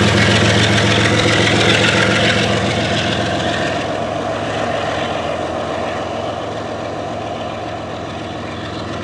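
GE ES44AC diesel locomotive, the rear distributed-power unit of a loaded coal train, running as it moves away, with its steady low engine hum and the clatter of wheels on the rails fading gradually.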